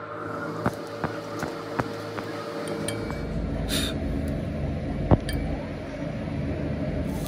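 Sharp metallic clinks of hand tools knocking against a steel truck axle hub: several in the first two seconds and the loudest about five seconds in, over a steady low hum that grows louder partway through, with a short hiss a little before halfway.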